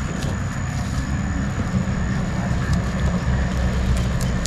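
Steady low rumble with a faint constant high whine above it and a few light ticks.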